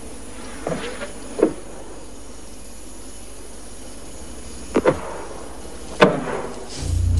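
Steady background hiss broken by a handful of short, sharp clicks, in a small cluster about a second in, a pair just before five seconds and the loudest near six seconds. A loud, low, steady sound begins in the last half second.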